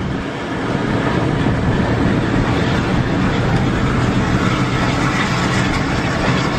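Steady engine and road noise of a coach bus cruising at speed, heard inside its cab.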